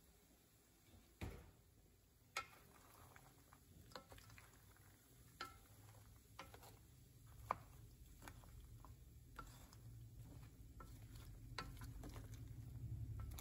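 Wooden spatula stirring peas, carrots and mushrooms in a frying pan, quietly, with scattered light clicks and taps against the pan and a low rumble building from about halfway through.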